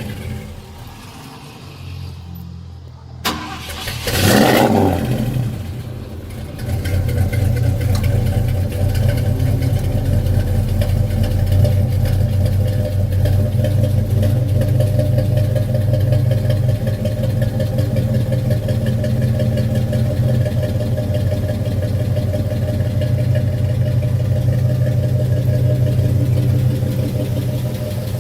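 A 1972 Ford truck's engine being hard-started from cold. There is a sharp click about three seconds in and a short loud burst of noise, then the engine catches about six seconds in and keeps running steadily.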